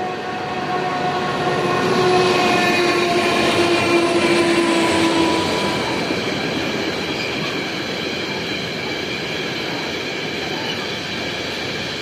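Freight train passing close by at speed: a locomotive's humming tone, sliding slightly lower in pitch as it goes by and fading about five seconds in, over the rushing rumble and clatter of the loaded freight wagons, which continues after the tone is gone.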